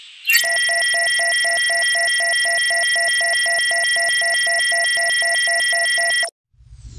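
Synthesized electronic tone: a steady chord of pure tones with a fast pulsing beat of about four pulses a second. It starts abruptly a moment in and cuts off suddenly a little over six seconds in.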